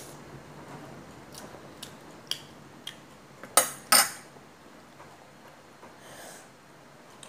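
A metal spoon clinking lightly against a bowl a few times, then two sharp, louder clinks about three and a half and four seconds in.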